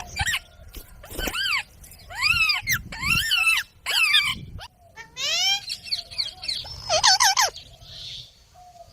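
Indian ringneck parrot calling: a run of about eight loud, harsh calls, each rising and then falling in pitch, with short gaps between them.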